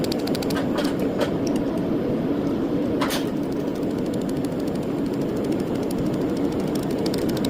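A machine hums steadily, with a few sharp clicks and a rapid run of ticks that fades early on and comes back near the end.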